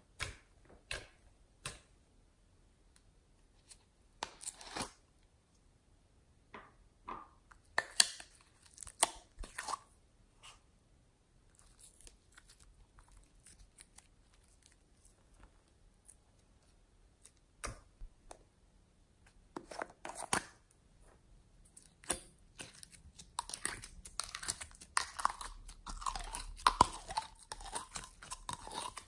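Glossy slime squished and stretched by hand, making sticky clicks and crackles. They are scattered at first and come thick and fast in the last several seconds.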